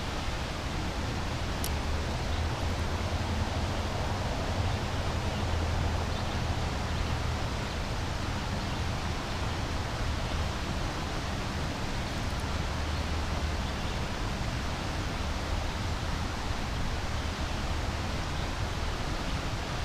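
Steady outdoor ambience: an even rushing hiss with a low rumble underneath.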